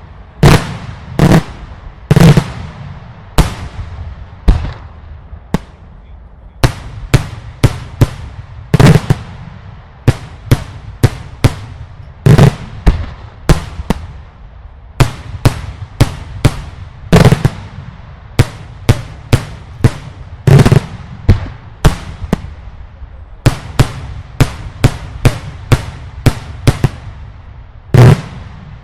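Daylight fireworks display: a rapid, irregular series of very loud explosive bangs, about two a second, each followed by a short echo, with a few brief lulls between volleys.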